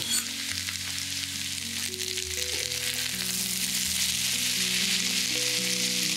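Potato cubes and sliced onion sizzling steadily in hot fat in a frying pan, with a few light clatters as the onion is tipped in at the start. Soft background music with held notes plays underneath.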